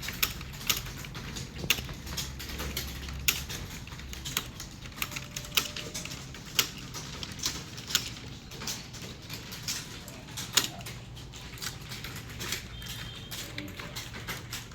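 Someone typing steadily on a keyboard: irregular key clicks a few per second, with an occasional harder stroke, over a low steady hum.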